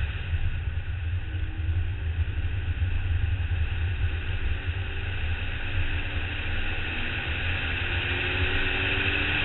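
BMW 135i's turbocharged straight-six pulling hard at speed, half buried under a steady rush of wind and road noise on an externally mounted action camera, its faint engine note climbing slowly as the car accelerates down the straight.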